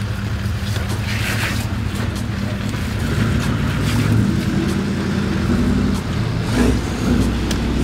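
A 79 series Toyota Landcruiser dual cab's V8 turbo-diesel running at low revs as the vehicle crawls over rocks into a creek crossing, rising slightly at times. It plays over the rush of the creek, with a few sharp knocks.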